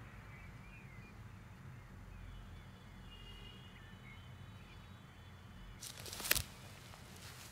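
Quiet outdoor ambience with a low rumble and faint bird chirps. About six seconds in comes a short rustling thump as a football is grabbed up off the grass.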